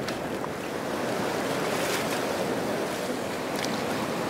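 Steady rush of surf, with shallow waves and foam washing over the sand at the water's edge.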